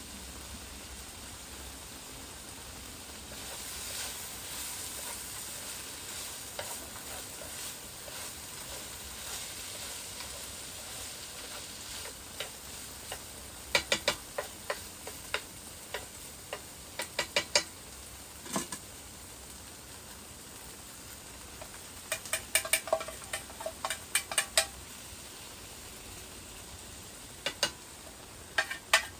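Food sizzling in a pan on a camp stove, with a steady hiss and several bursts of quick metal clinks as a utensil stirs against the pan.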